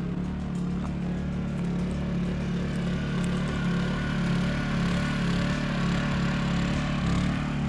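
A vehicle engine running steadily: a continuous low drone with even noise above it.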